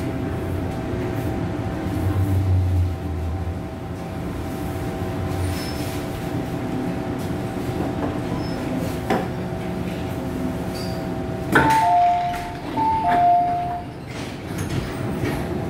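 MTR Island Line M-Train rumbling and humming as it draws to a stop at the platform. About twelve seconds in there is a clunk, then a two-tone door chime sounds twice, high note then low, as the doors slide open.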